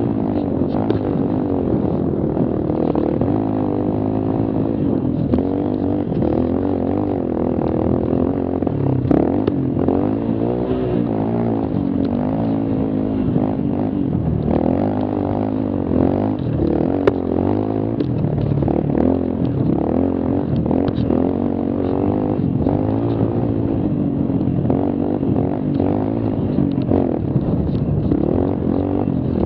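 Mini quad engine revving up and down without a break, its pitch rising and falling with the throttle as it is ridden over a rough dirt trail, heard from on board, with a few knocks over it.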